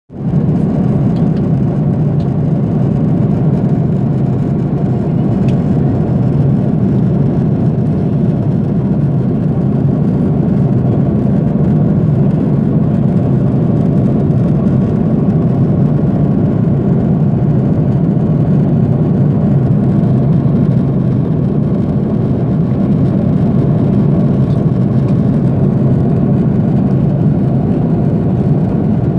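Steady low drone inside a jet airliner's cabin in cruise flight: engine and airflow noise heard from a window seat.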